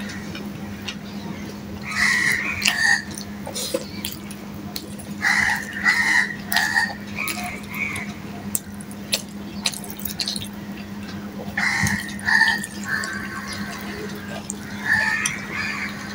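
Close-up wet chewing and lip-smacking of mouthfuls of rice and fried fish, coming in several short bursts, with a few light clicks and a steady low hum underneath.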